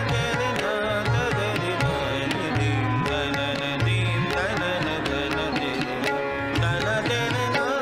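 Hindustani classical music for a Kathak tarana in teentaal: tabla strokes under a bending melodic line, playing continuously.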